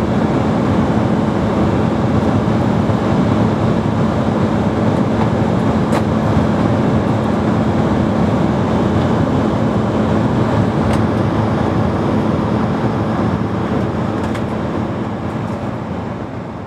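Steady cabin noise of an Embraer 170 airliner in flight: its GE CF34 turbofan engines and the airflow over the fuselage, with a steady low hum underneath. It fades out near the end.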